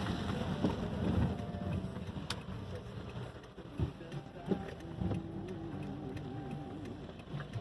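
Strong storm wind buffeting the microphone as a low rumble, heaviest in the first second or so, then easing, with a few scattered clicks.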